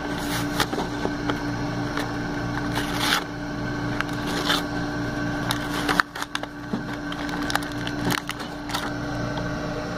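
Cardboard-and-plastic toy packaging being handled and pried open by hand: irregular crinkling and crackling with a few louder crunches, over a steady low hum.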